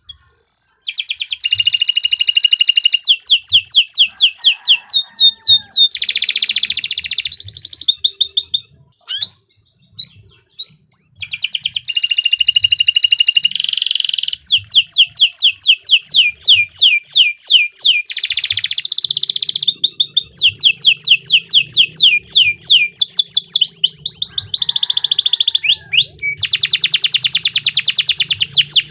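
Domestic canary singing a long, continuous song of rapid trills and rolling runs of repeated high notes, broken by a short stretch of scattered single notes about nine seconds in.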